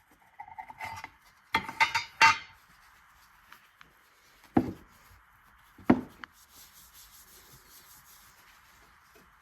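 Homemade duck call with a double-reed insert blown in short quacks: three close together about two seconds in, then two single quacks that fall in pitch.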